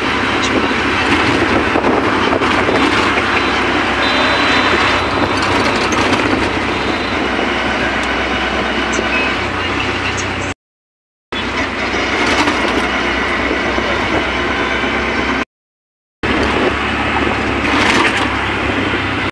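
Auto-rickshaw engine running, with road and wind noise from inside its open cab as it drives through traffic. The sound cuts out to silence twice, for under a second each time.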